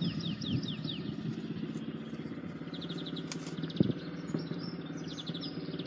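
Small birds singing in short runs of quick falling chirps, repeated several times, over a steady low engine-like rumble. A single light knock comes a little before four seconds in.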